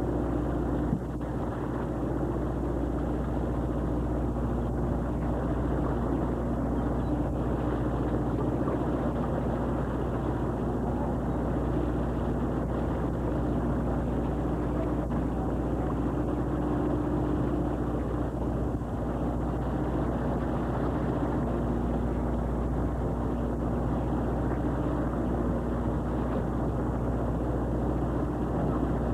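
Commercial fishing boat's engine running steadily: a constant low drone with a hum that swells and fades slightly.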